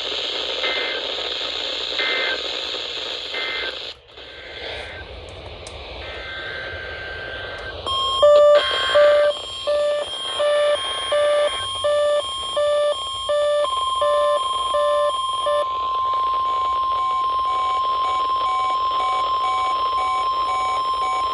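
Weather radio audio with hissy static at first. About eight seconds in, a two-pitch beeping alarm starts, roughly three beeps every two seconds. From about halfway, the steady 1050 Hz NOAA Weather Radio warning alarm tone sounds for its weekly test and holds on, with fainter beeps under it.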